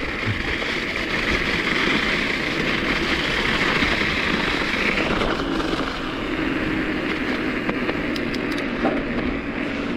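Mountain bike riding noise: a steady rush of wind and tyre rumble on the bike-mounted camera's microphone, with a faint steady hum joining about halfway through.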